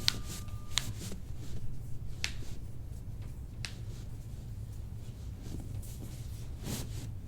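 Joints cracking during a chiropractic adjustment: about five sharp, separate pops, two close together near the start and the rest spread out, over a steady low hum.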